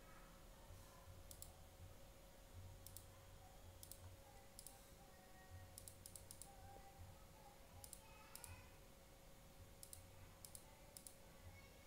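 Faint, sharp clicks of a computer mouse, some single and some in quick runs of two to four, spaced irregularly over a low steady hum.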